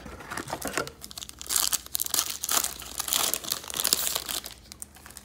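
Wrapper of a trading-card pack crinkling and tearing as the pack is ripped open. It is a dense crackle, heaviest from about one and a half seconds in to about four and a half seconds.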